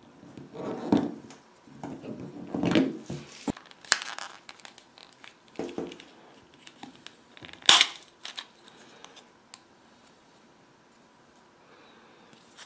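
U8 smartwatch's plastic case being handled and pried apart by hand: irregular scraping and rubbing of plastic, with one sharp click about eight seconds in, then quieter fiddling as the rear housing comes away.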